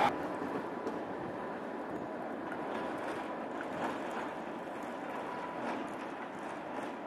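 A tram creeping slowly out of a depot hall: a steady background rumble with a thin, steady high tone and a few faint clicks.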